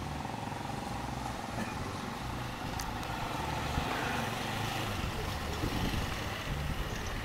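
A motorcycle engine running as the bike rides closer, growing a little louder.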